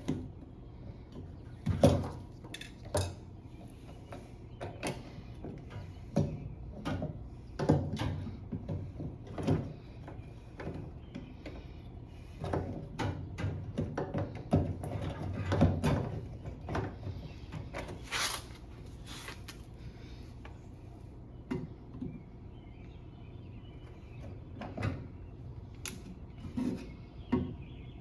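Irregular knocks, clunks and rattles of metal parts being handled while the fuel pump and sending unit assembly is worked out of a Fox-body Mustang's fuel tank, over a steady low hum.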